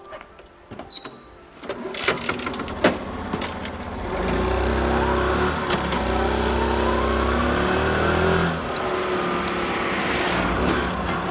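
Small delivery motorcycle's engine: a few knocks and clicks at first, then the engine pulls away about four seconds in, its pitch rising steadily. The pitch drops once near the end and the engine runs on.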